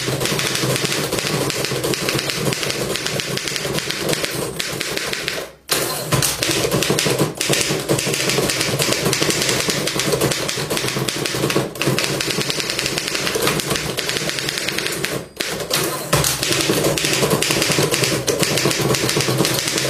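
Antique manual typewriter being typed on fast: a dense, continuous clatter of keystrokes and typebars striking the platen, with two brief pauses about five and a half and fifteen seconds in.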